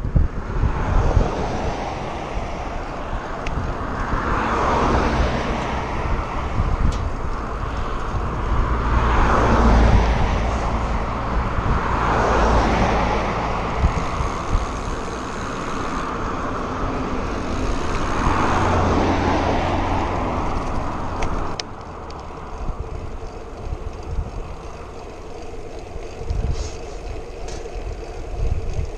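Cars passing on the road alongside a moving bicycle, several rushing swells that rise and fade, over wind rumble on the action camera's microphone. About two-thirds of the way through it drops abruptly to a quieter, steady rush.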